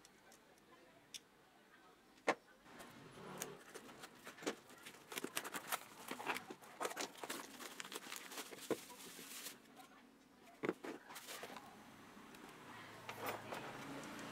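Faint crinkling and rustling of paper and plastic packaging as a battery pack is unwrapped by hand, densest in the middle, with a few sharp clicks of things being handled.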